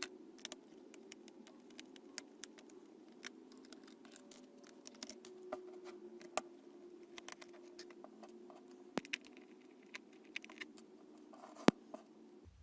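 Scattered light clicks and scratches of a small screwdriver working tiny screws out of a laptop's case, over a faint steady hum.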